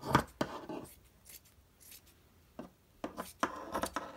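Scissors cutting through cotton T-shirt fabric: a cluster of snips in the first second, a quieter pause, then another run of snips near the end.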